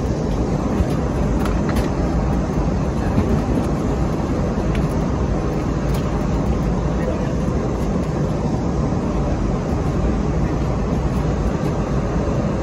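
Steady cabin noise of a jet airliner in flight: the engines and airflow make a dense, even low rumble with a few faint clicks.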